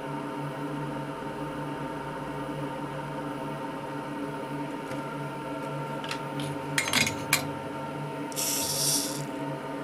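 Steady hum from the soldering bench, with a quick cluster of sharp clicks about seven seconds in as the soldering iron is lifted away from the circuit board, then a brief hiss shortly after.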